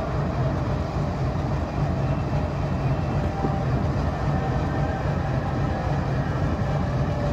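GEU-40 diesel-electric locomotive's engine running with a steady low rumble.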